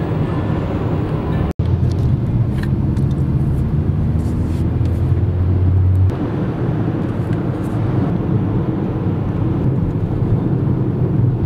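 Steady engine and road noise of a moving car, heard from inside the cabin, with sudden cuts about one and a half seconds and six seconds in.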